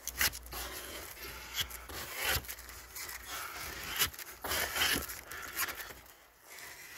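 Fibreglass filler that is starting to set being scraped off a mixing board and worked into a hole in caravan bodywork: a run of irregular scrapes, quieter shortly before the end.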